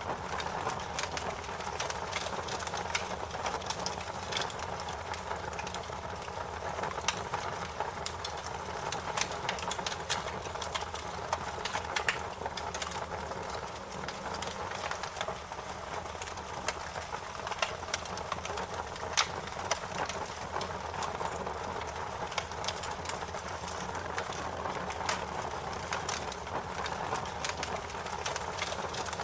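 Wood fire crackling steadily, with many irregular sharp pops and snaps over a constant low rush.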